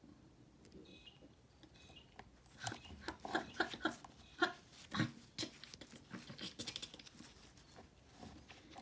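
Gloved hands handling a Yale 110/40 brass padlock and its picking tools: a quick run of clicks, taps and knocks about two and a half seconds in, then softer scratching and rustling.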